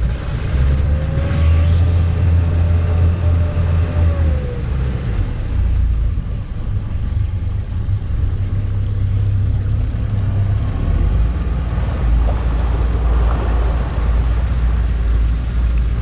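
Steady low rumble of an engine running, with a faint tone that slides down in pitch about four seconds in.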